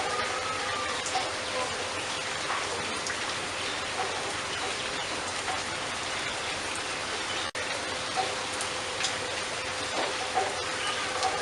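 Steady rain with scattered drip-like ticks, and a few faint bird chirps over it. The sound cuts out for a moment about seven and a half seconds in.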